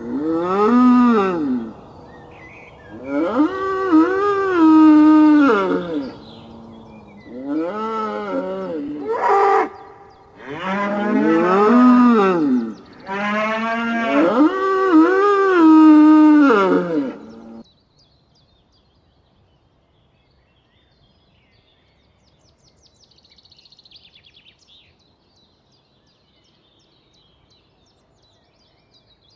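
Cattle mooing: a run of five or six long, drawn-out moos that stops about two-thirds of the way in.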